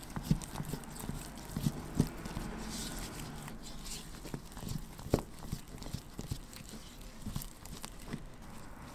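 Spatula mixing thick bean paste in a bowl: irregular soft taps, scrapes and sticky squelches as the paste is pressed and folded against the bowl's sides while purple colouring is worked in.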